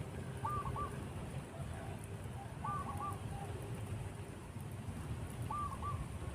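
A bird calling three times, each call a quick group of two or three short arched notes, over a steady low rumble.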